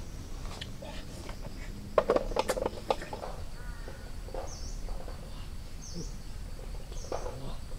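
Outdoor tropical forest ambience: insects keep up a steady high drone while a short high call repeats about once a second in the second half. About two seconds in there is a cluster of sharp clicks and rustles.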